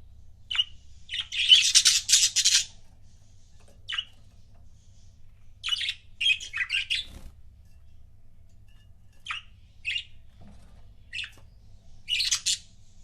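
Budgerigars chirping and chattering in short scattered calls, with a longer, louder burst of warbling chatter about a second in and another cluster near the end.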